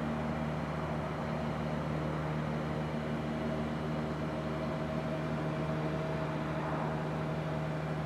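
Single-engine propeller airplane's piston engine and propeller droning steadily at one even pitch as it flies toward the listener.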